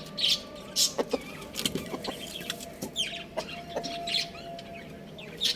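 Chickens clucking, with a scattered string of short, sharp, high-pitched calls; the loudest call comes near the end.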